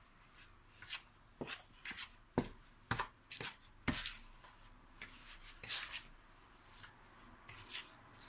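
A fork stirring a batter of grated zucchini, herbs and flour in a plastic bowl. It makes irregular clicks and knocks against the bowl, sharpest in the first few seconds, with softer scraping rustles after that.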